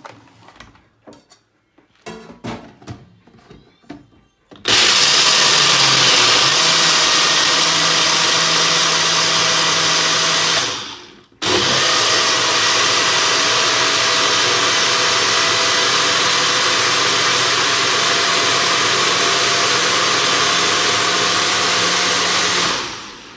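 Personal push-down blender grinding washed peanuts in cold water. The cup knocks and clicks as it is fitted onto the base, then the motor runs loud and steady for about six seconds, stops briefly, and runs again for about eleven seconds before winding down.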